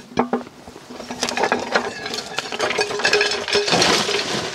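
Rustling with scattered clicks and light knocks, building up about a second in.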